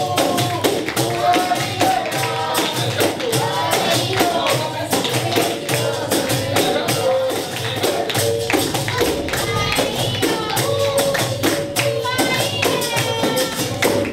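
Capoeira music: a pandeiro (tambourine) keeps a steady rhythm under singing voices.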